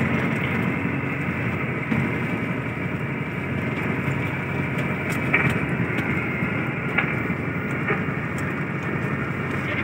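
Fishing boat's engine running steadily, with a few light knocks over it in the second half.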